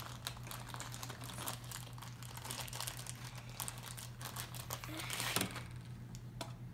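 Thin plastic wrapper packets crinkling and crackling as they are handled and torn open, in a quick, irregular run of crackles with a louder crunch about five seconds in.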